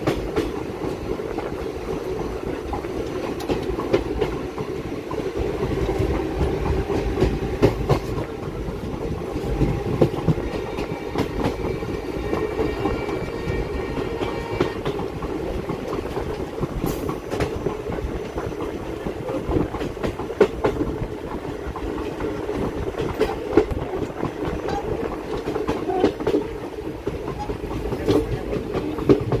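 Passenger train running along the track: a steady rumble of wheels on the rails, with scattered clicks and knocks from the running gear and rail joints.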